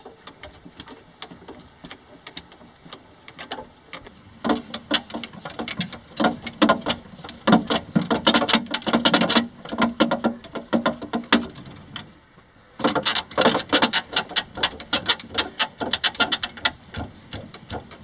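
Hand crank turning the chain-and-sprocket drive of a small bulldozer, a rapid, uneven clatter of clicks and rattles as the upper body rotates. It pauses briefly about two-thirds through, then carries on.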